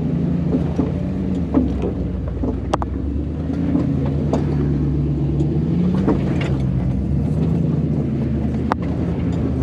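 Off-road 4x4's engine running at low revs while crawling a rocky trail, its pitch rising and falling a few times with the throttle. Sharp knocks and clicks come now and then.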